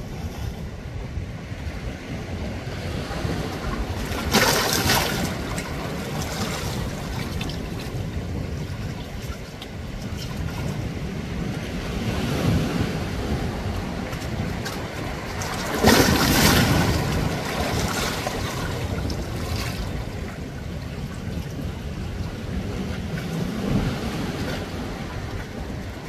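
Small waves lapping and splashing against a rocky shoreline, a steady wash of water with louder splashes about four seconds in and again around sixteen seconds in.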